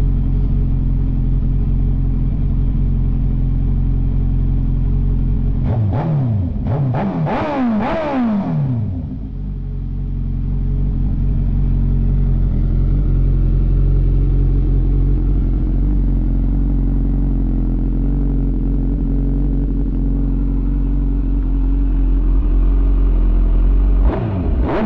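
2005–06 Suzuki GSX-R1000's inline-four engine running through an HR1 slip-on shorty exhaust. It idles steadily, is blipped up and down about three times in quick succession between six and nine seconds in, then idles again and revs once more right at the end.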